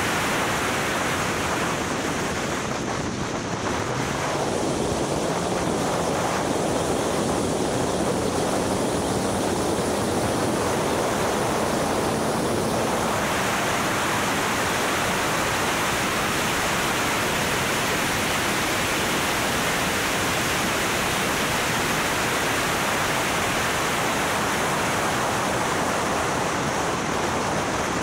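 Steady, loud wind rush and road noise over the microphone of the R300 track car at speed, with its engine note faint underneath.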